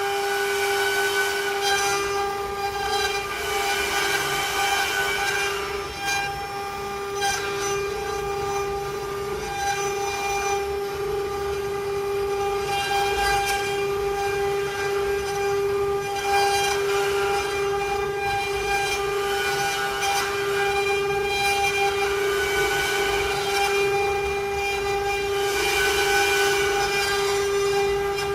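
CNC wood-carving router spindle running with a steady high whine, with a rougher rasping noise over it that swells and fades as the bit cuts the wood.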